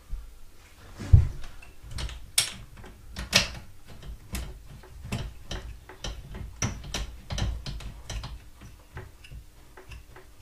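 Irregular clicks and knocks of hard parts being handled and fitted as a mobility scooter's motor and transaxle are put back together, the loudest knock about a second in.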